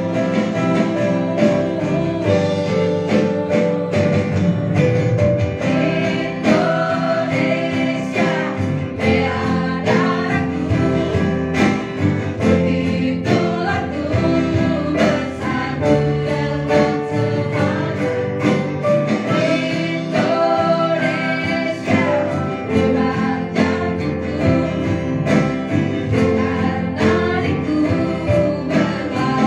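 Small live band playing a song: a woman singing into a microphone with other voices joining, backed by keyboard, electric and acoustic guitars and drums with a steady beat.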